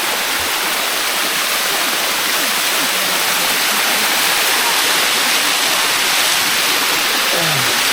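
Waterfall water rushing steadily over rock close by: a loud, even hiss of falling water with no let-up.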